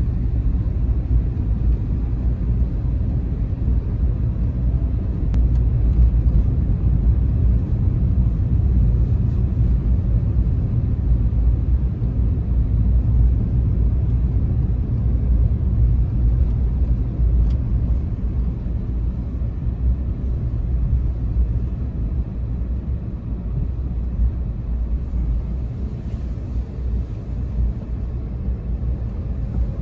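Low, steady rumble of a car driving slowly, engine and tyre noise heard from inside the cabin, easing a little in the last third.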